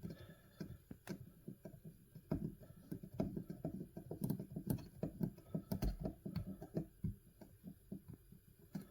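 Faint, irregular light clicks and knocks of a restored metal hand plane being handled, several a second at times.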